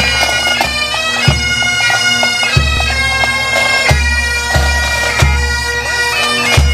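Pipe band playing: bagpipes sounding a melody over their steady drone, with a regular bass drum beat underneath.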